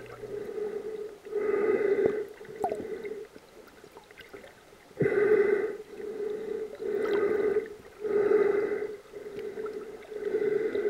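Snorkeler breathing in and out through a snorkel tube: a rushing breath every second or two, with a short pause partway through.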